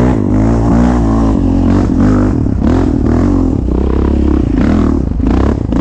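Quad bike (ATV) engine revving, its pitch rising and falling again and again as it is ridden, with some short knocks and clatter.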